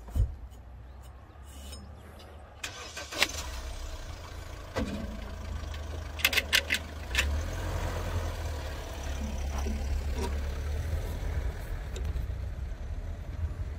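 Tractor air filter element being handled and pushed into its metal air cleaner housing: a few sharp clicks and knocks, a cluster of them about six seconds in, over a steady low rumble.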